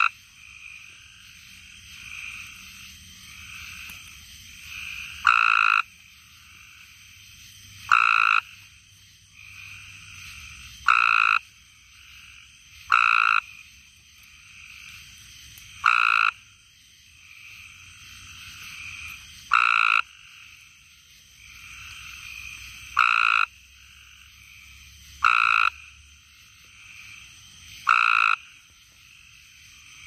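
Gray treefrog calling close by: a short trill repeated nine times, every two to three seconds, over a fainter chorus of more treefrogs calling.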